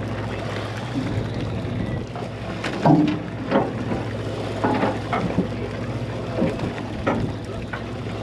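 A fishing party boat's machinery runs with a steady low hum, with scattered short knocks and clatter on board.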